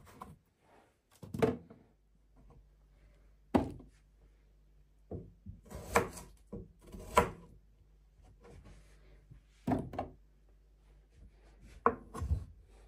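Irregular knocks and thuds of food prep: potato pieces and a kitchen knife knocking on a plastic chopping board, and vegetables landing in a metal roasting tray, about nine separate knocks. Near the end a knife goes through a potato onto the board.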